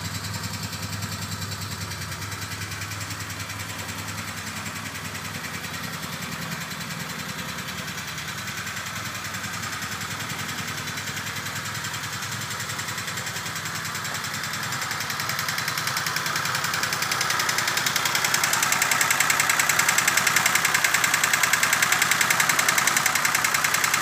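Peugeot 304 engine running with a steady, rapid pulsing beat. About fifteen seconds in it grows louder and harsher and stays that way to the end.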